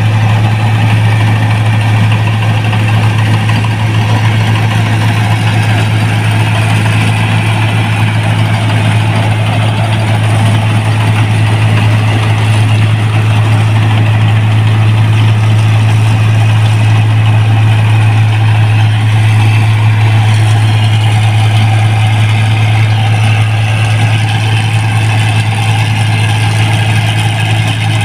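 New Holland 1545 combine harvester running steadily under load as it cuts and threshes rice, with a constant low hum.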